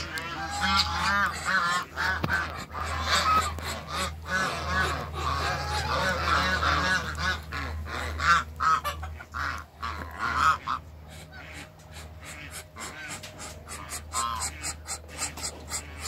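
A group of domestic geese honking, many short overlapping honks at first, thinning to occasional calls near the end. Sharp clicks can be heard in the later part.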